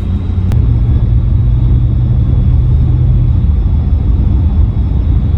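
Vehicle engine and road noise heard from inside the cab while driving, a loud low steady rumble with a single click about half a second in.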